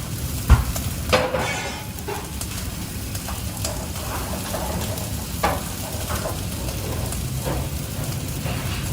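Food sizzling as it fries in a pan, with a utensil stirring and clinking against it. There is a sharp knock about half a second in.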